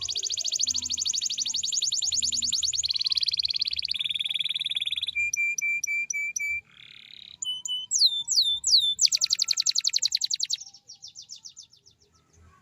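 Domestic canary singing a long, loud song of rapid rolling trills, switching from one trill type to the next: fast high rolls, lower rolls, a run of short repeated notes, a few downward-sliding whistles, then another fast roll that fades out near the end.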